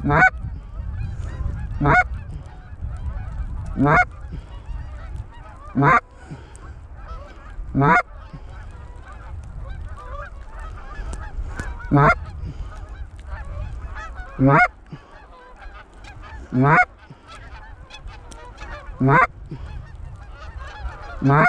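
Loud, close goose honks repeated about every two seconds, each rising sharply in pitch, over the steady distant clamour of a large flock of geese calling overhead, with low wind rumble.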